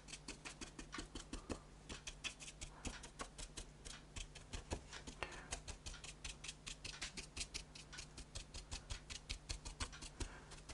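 Faint quick scratching ticks of a flat paintbrush dry-brushing paint across an embossed foam-board cobblestone surface, several short strokes a second in an irregular rhythm. A low steady hum runs underneath.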